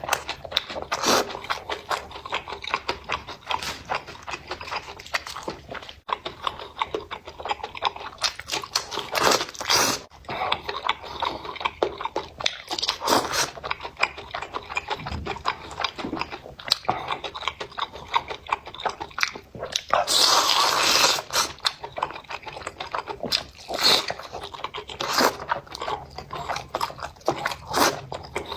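Close-miked eating sounds: continuous chewing and biting with crunchy, wet mouth clicks, and one longer, louder noisy stretch about twenty seconds in.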